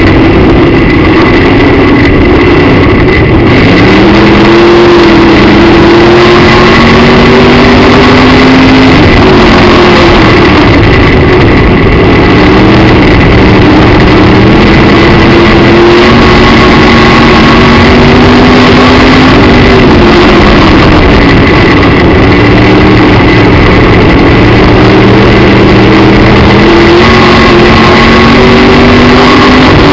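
Midwest Modified dirt-track race car engine heard from inside the cockpit, loud throughout. Its pitch climbs slowly for several seconds and then drops, three times: the driver on the throttle and lifting, lap after lap.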